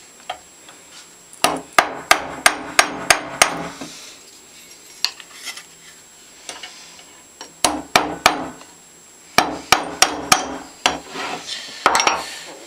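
Small hammer tapping on a Stanley No. 113 compass plane in quick runs of light sharp taps: about eight in a row a second and a half in, then runs of four and five a few seconds later, and one more near the end.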